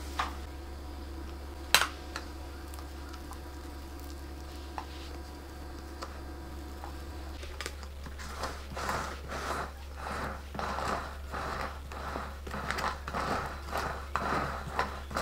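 Plastic cake scraper scraping frosting over the side of a cake in repeated strokes, starting about halfway through, over a steady low hum. A single sharp knock about two seconds in.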